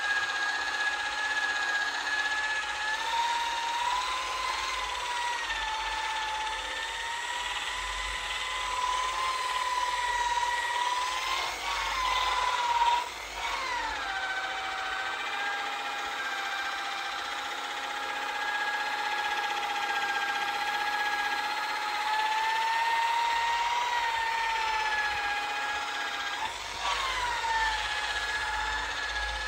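Corded angle-grinder-style buffer with a soft foam polishing mop, running while it buffs polish on a painted boat hull. It gives a steady motor whine whose pitch wavers as the mop is pressed on and eased off. The pitch dips sharply about halfway and again near the end.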